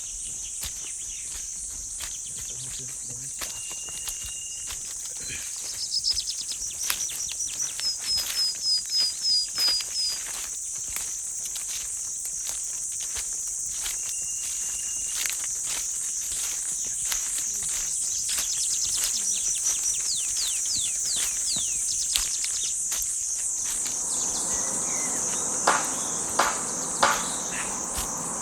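A steady high-pitched chorus of jungle insects, with a bird calling a quick series of repeated notes about a quarter of the way in and other short calls later. A few sharp knocks near the end.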